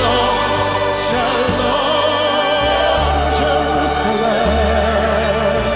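Christian worship song with a held, wavering vibrato melody over sustained bass notes and scattered cymbal hits.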